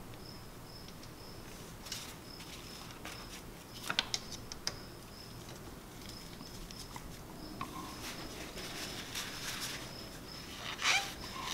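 Small scattered metal clicks and taps as a brake-line banjo bolt with copper washers is threaded into a hydraulic brake caliper by hand and then engaged with a hex key, with a short cluster of clicks about four seconds in and more near the end.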